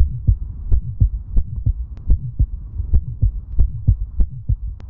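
Recorded heart auscultation of a Still's murmur: a quick, regular heartbeat with a vibratory systolic murmur between the sounds. It is the typical innocent murmur of childhood.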